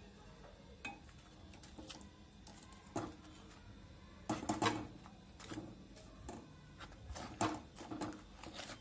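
A steel spoon clinking and scraping against a steel pan as sugar syrup is spooned over fried malpuas: scattered light clinks, with a cluster of them about four seconds in.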